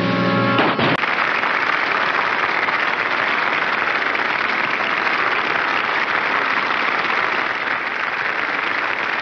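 Audience applause sound effect: steady clapping from a crowd, starting about a second in as the music cuts off.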